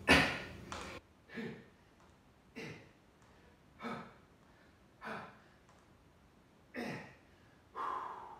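A man breathing out hard with each push-up: seven short, forceful exhales, about one every 1.2 seconds. The first is the loudest.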